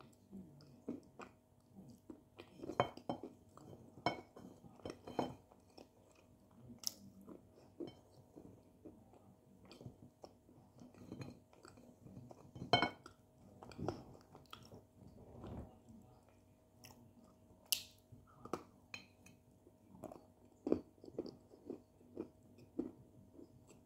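Pieces of dry clay being bitten and chewed close to the microphone: irregular crunching, with a few sharper snaps as chunks break.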